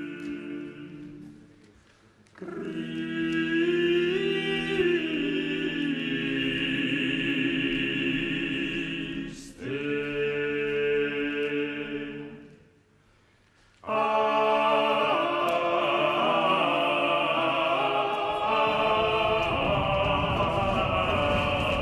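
Voices singing slow choral polyphony in long held notes. It breaks off briefly about two seconds in and again around twelve to fourteen seconds in, then comes back fuller, with a low rumble underneath near the end.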